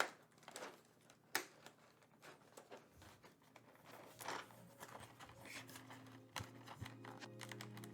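Scattered plastic clicks and light rattles of PBT keycaps being handled and fitted back into their box, irregular rather than a typing rhythm. Soft background music comes in during the second half.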